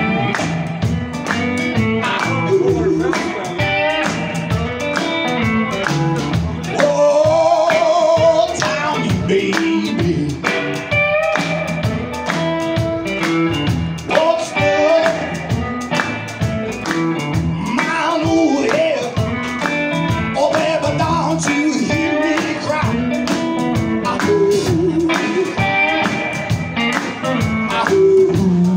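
Live blues-rock band with upright bass, electric guitar and drums keeping a steady beat, and a male vocalist singing into a handheld microphone.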